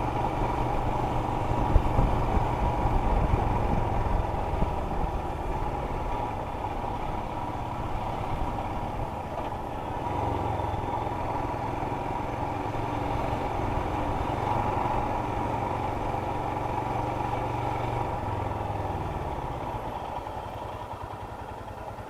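Motorcycle engine running steadily while riding, over low wind rumble; it grows quieter near the end.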